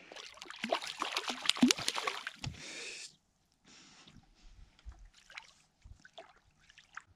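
Water splashing at the surface as a small fish thrashes right beside the boat for about three seconds, then stops suddenly. A few faint scattered ticks follow.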